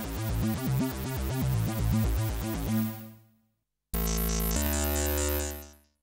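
GForce impOSCar 2 software synthesizer, an emulation of the OSCar synth, playing an arpeggio preset: a fast repeating run of notes over a low bass line that dies away about three seconds in. After a short gap, a second preset sounds as a held chord over a deep bass note that fades out near the end.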